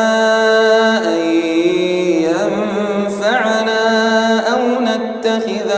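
A man's solo voice chanting Quran recitation in melodic tajweed style, drawing out long held notes with wavering ornaments and gliding between pitches without a break.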